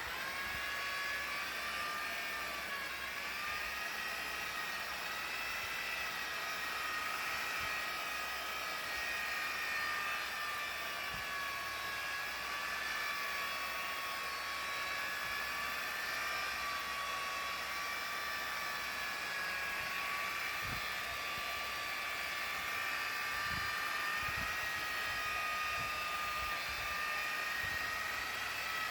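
A small electric motor running steadily with a high whine that wavers slightly in pitch, over a hiss; it starts abruptly.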